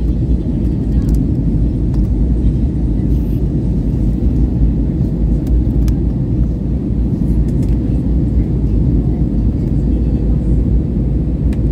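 Steady low rumble of an Airbus A320's cabin in flight on descent, from jet engine and airflow noise, with a faint steady hum.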